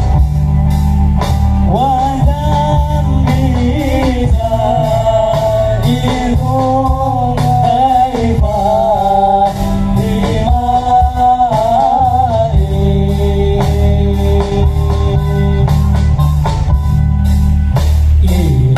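Live band music played loud through a large outdoor PA sound system: a singing voice over heavy bass and a steady drum beat. About two-thirds of the way through, the voice gives way to a long held note.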